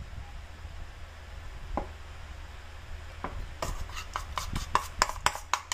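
Metal spoon stirring a thick turmeric and rice-flour paste in a plastic bowl: a couple of lone taps, then from about three and a half seconds in, quick repeated scraping clicks of the spoon against the bowl, over a steady low hum.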